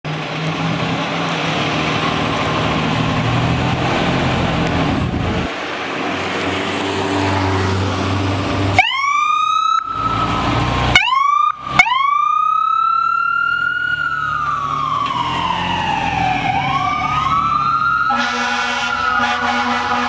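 A Pierce Arrow XT fire engine's diesel engine rumbling as it pulls out, then its siren starting about nine seconds in with two short rising bursts before settling into a wail that rises and falls. Near the end the heavy air horn sounds a steady blast over the wail.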